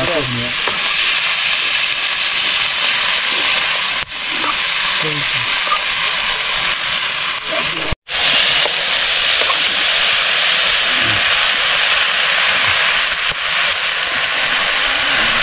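Food frying in a metal pan over an open wood fire: a steady, loud sizzle, cut off for an instant about halfway through.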